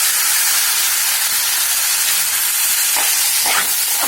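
Soaked rice frying in hot ghee with onions in a pan, a steady sizzling hiss, with a few scraping strokes of the stirring spoon near the end as it is sautéed.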